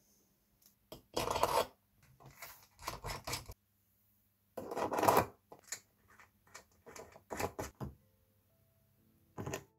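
Irregular scraping and rubbing on a wooden skateboard deck, with light handling knocks. Two strokes, about 1 s and 5 s in, are longer and louder than the rest.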